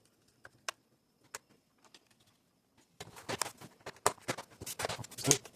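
A few scattered small clicks, then from about three seconds in a dense run of clicks and rattles: small screws and the plastic case of a Dell Inspiron 15 3520 laptop being handled as it is screwed back together.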